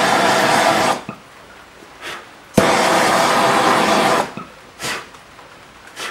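Handheld gas torch burning through packing tape on a cardboard box. Its flame hisses loudly in two bursts of about a second and a half each, each cutting in abruptly, with quieter gaps between.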